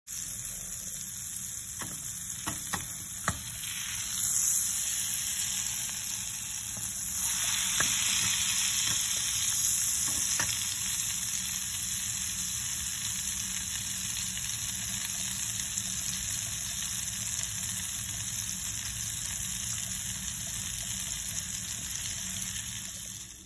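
Butter sizzling in a hot pan, a steady frying hiss. A few sharp clicks come about two to three seconds in.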